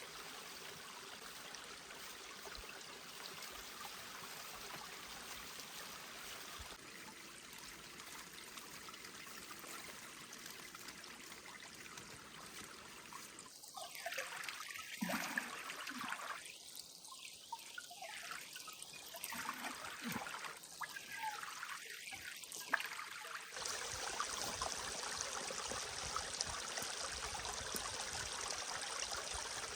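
Forest stream running, a steady rush of water. Partway through, closer irregular trickling and splashing comes and goes for about ten seconds, then the water sound jumps louder and stays steady.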